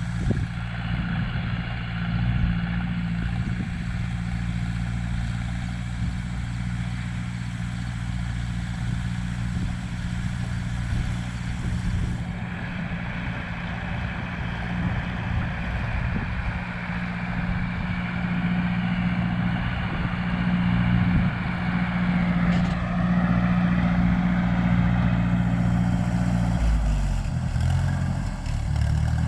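Heavy equipment engine running steadily under load while spreading sand. Its speed drops and picks back up near the end.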